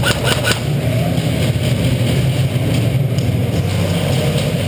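A steady low hum, with a quick string of about five sharp cracks from airsoft guns firing in the first half-second.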